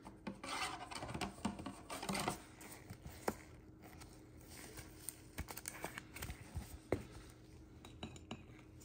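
Faint plastic rustling and small scattered taps of a trading card being slid into a clear plastic sleeve and rigid top loader by hand.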